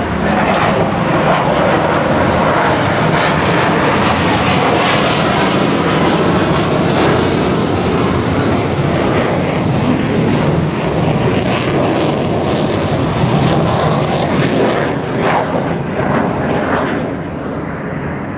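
Su-35 jet fighter flying low overhead on afterburner: loud, continuous jet noise that eases somewhat near the end.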